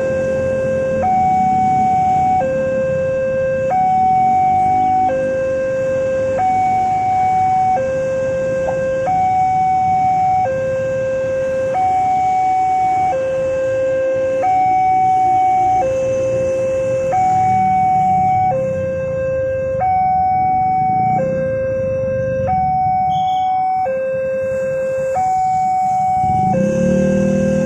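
Level-crossing warning alarm from the loudspeaker on the crossing signal: an electronic two-tone hi-lo tone switching between a higher and a lower note about once a second, sounding while the barrier is down for an approaching train. Road-vehicle engines run low beneath it.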